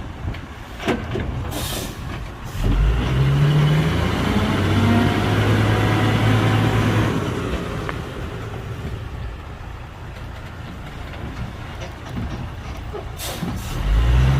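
Heavy diesel engine of earthmoving machinery revving up under load twice, about three seconds in and again near the end, with a short hiss of air shortly before each rev.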